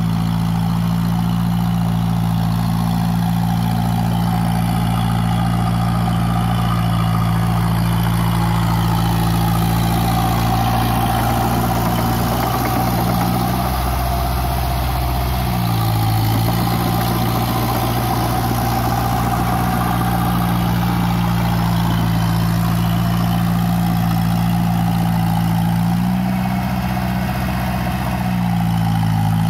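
Massey Ferguson 185 tractor's four-cylinder diesel engine running steadily while working a rice paddy. Its note shifts briefly about halfway through and again near the end.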